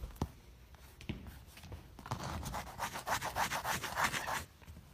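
Fingers scratching and rubbing at a painted spike mark on a stage floor, a quick run of rough scraping strokes lasting about two seconds, after a couple of light taps.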